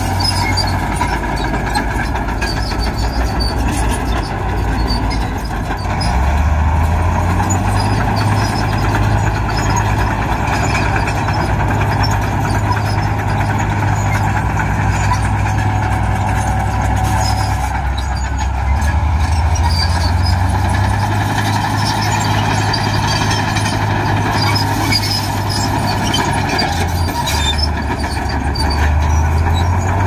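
Heavy diesel engine of an earthmoving machine running loudly and continuously. Its low engine note shifts several times.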